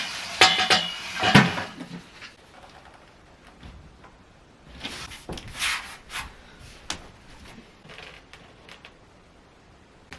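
Knocks, clicks and rustling of objects being handled and set in place, loudest in a cluster in the first couple of seconds and again about halfway through.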